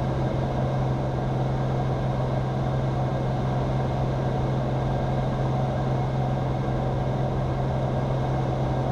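Cirrus SR22's six-cylinder piston engine and propeller running steadily in flight, an even drone with a strong low hum.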